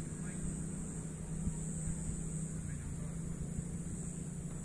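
A steady low hum, engine-like, under a steady high-pitched hiss of outdoor background.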